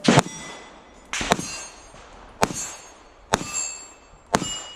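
Springfield Armory EMP pistol firing a string of shots about a second apart, each shot followed by the high ringing clang of a struck steel target.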